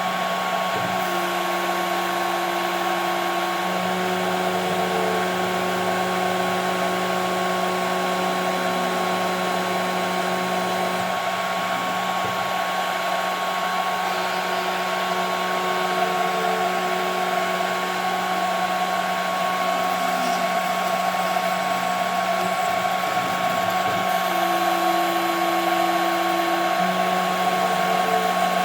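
CNC router spindle running steadily with a high whine as it machines 5 mm plexiglass. Lower tones from the machine's motion come and go every few seconds, changing as the cutting path changes.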